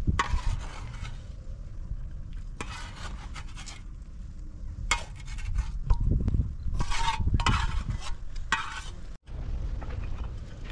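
A utensil scraping and stirring in a metal cooking pot in short, uneven strokes, over a steady low rumble.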